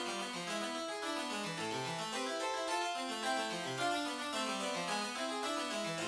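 Harpsichord-style keyboard music playing quick runs of plucked notes that sweep down and back up in the bass, as a steady instrumental passage.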